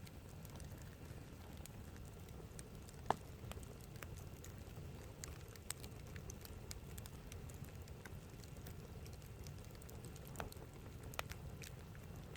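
Campfire burning, with scattered crackles and pops over a low steady rumble. One sharp pop about three seconds in is the loudest, with a few smaller ones later.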